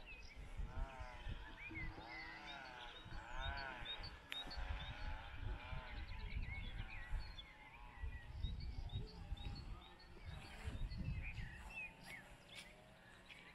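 Birdsong in open country: small birds chirping throughout, with a run of repeated rising-and-falling calls in the first half, over wind rumbling on the microphone.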